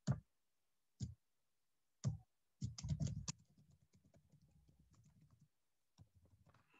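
Typing on a computer keyboard. Three single keystrokes come about a second apart, then a quick run of keystrokes about two and a half seconds in, fading into faint light taps, with one more click near the end.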